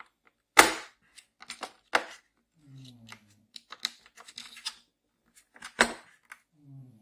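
Hard clicks and clacks of steel sockets and tools being handled and knocked against the moulded plastic case of a pneumatic ratchet set, with two louder knocks about half a second in and near six seconds in.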